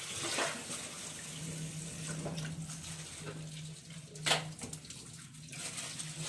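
Water splashing and sloshing in a stainless-steel kitchen sink as raw chicken pieces are rinsed by hand, with one sharp splash or knock about four seconds in.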